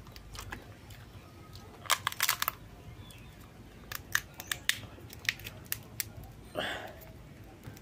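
Cooked crab shell being cracked and broken apart by hand, giving sharp cracks and snaps. A quick cluster comes about two seconds in, and several more come over the following few seconds.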